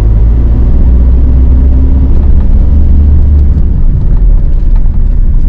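Steady, low engine and road noise heard inside the cab of a VW T6.1 camper van while it is driven along.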